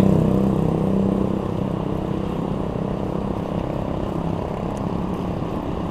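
Street traffic heard from a moving bicycle: a steady rumble and hiss, with a passing motor vehicle's engine hum fading over the first second or two.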